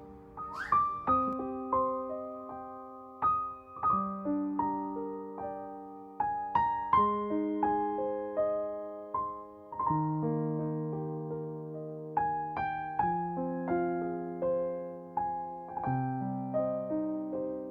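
Background piano music: a slow melody of single notes and chords, each note struck and left to ring out.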